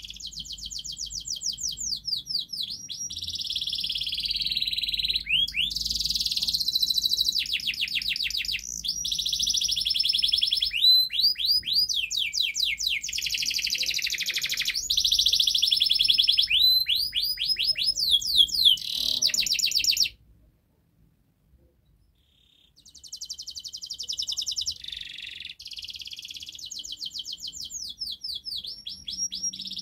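Domestic canary singing long rolling trills and runs of rapid repeated high notes, changing pitch from phrase to phrase. The song stops for about two seconds about two-thirds of the way through, then starts again.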